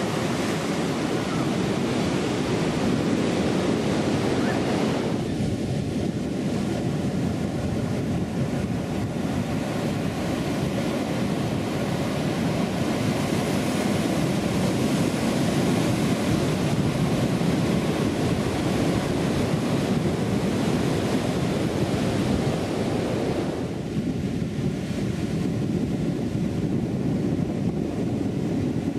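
Steady rush of ocean surf breaking and washing up a sandy beach, with wind on the microphone.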